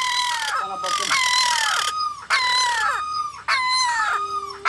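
Birds calling over and over: a rapid series of loud falling calls, about two a second, some overlapping.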